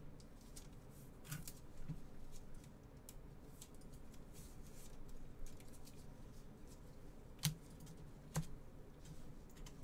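Faint rustling and light clicking of a trading card being slid into a clear plastic card holder, with two sharp clicks about a second apart near the end.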